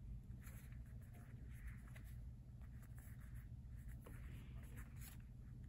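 Faint scratchy rustling from hands handling small objects: a few soft scrapes and rubs over a low steady hum.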